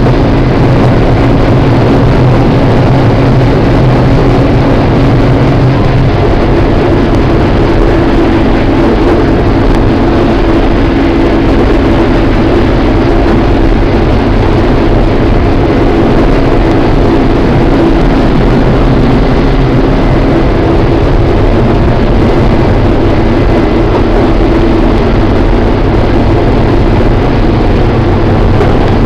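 New Holland TR70 combine running steadily while harvesting corn: a diesel engine drone under load with the threshing rotor and machinery working.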